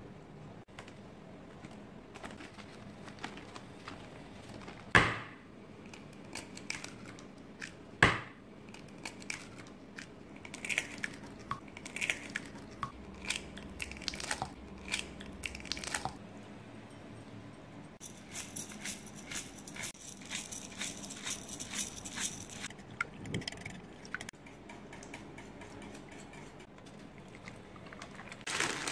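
Eggs cracked into a bowl and beaten: two sharp knocks of shell on the bowl's rim, then runs of quick clicks as the eggs are whisked.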